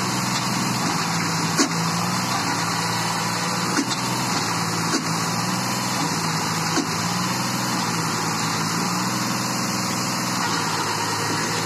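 Sonalika tractor's diesel engine running at a steady speed, with a few short sharp clacks over it.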